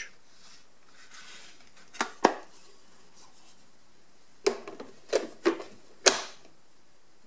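Sharp clicks and clacks of hard plastic as a Roborock robot vacuum's clear dust bin is handled and set into its bay. There are two clicks about two seconds in, then a quick run of five between four and a half and six seconds, the last one the loudest.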